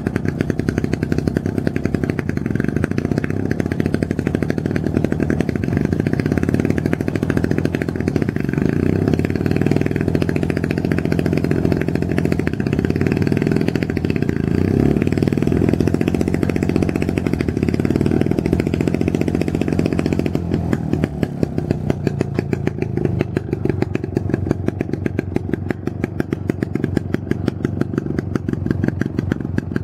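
Small engine of a Pengor Penguin amphibious ATV running with a rapid, steady putter under way. About two-thirds of the way through it eases off to a slower, softer putter.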